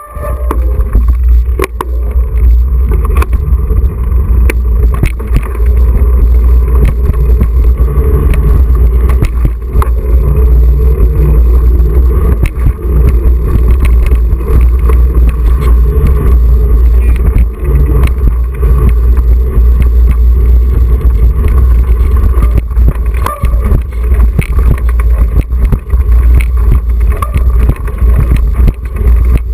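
Mountain bike ridden over a concrete storm water drain floor, heard from a camera mounted on the bike or rider: a loud, steady low rumble of tyres and vibration, with frequent short knocks and rattles as the bike goes over bumps.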